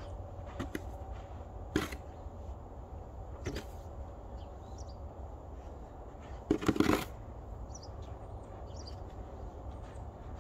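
Steady low rumble of a vehicle driving slowly over packed snow, with a few sharp knocks and a louder noisy burst about seven seconds in.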